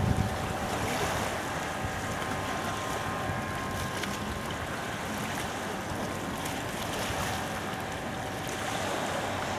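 Steady outdoor seaside ambience: wind on the microphone over calm seawater lapping gently at the shore, with a faint steady tone in the background through most of it.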